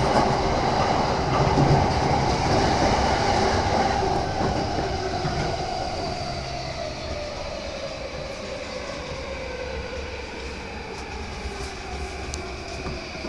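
Interior of a JR Yamanote Line E235-series commuter train running on the rails as it slows. The motor whine falls steadily in pitch and the running noise fades as the train brakes for the next station.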